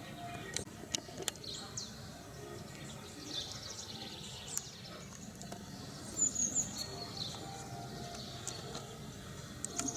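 Small birds chirping and calling in short, scattered notes, with a louder run of chirps about six seconds in, over a steady low background hum.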